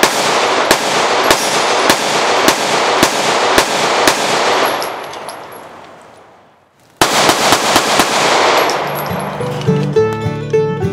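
Compact 9mm 1911 semi-automatic pistol fired in a steady string, about one shot every 0.6 seconds, each report sharp and echoing; the string stops about four seconds in and the echo dies away. Another burst of shots comes about seven seconds in, then plucked-string music with banjo or mandolin begins near the end.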